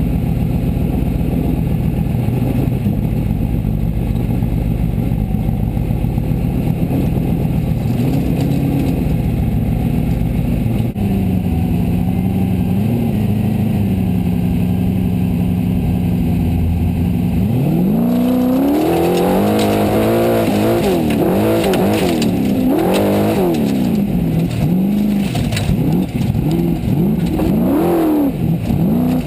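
A Formula Offroad buggy's engine heard from inside the cockpit, running steadily at low revs with a couple of light blips. About two-thirds of the way in it revs hard as the car launches, the revs swinging sharply up and down as it climbs a steep sand hill, with dirt and gravel clattering against the car.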